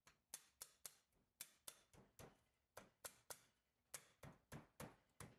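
Quick, light clicks and taps, about three a second and unevenly spaced, as powder-coated metal doll-crib rail parts are handled and fitted together.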